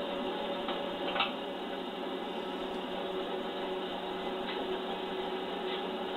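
Metal-turning lathe running with its chuck and workpiece spinning: a steady hum with several held tones, and a few faint clicks, the clearest about a second in.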